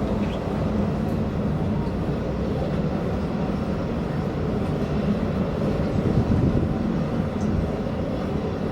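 Helicopter running, a steady low rumble of engine and rotor noise.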